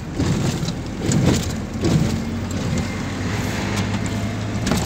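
GAZelle cargo van driving, heard from inside the cab: a steady engine drone and road noise, with a few short knocks and rattles, the sharpest near the end.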